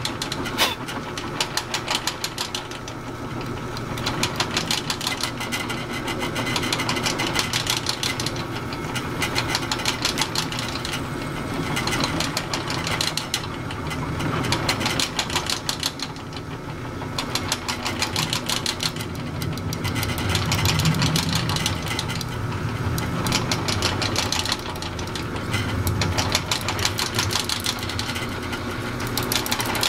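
Drill press running, its bit boring a deep, slightly-over-quarter-inch hole into a UHMW plastic block. The sound swells and dips every few seconds as the cut goes on.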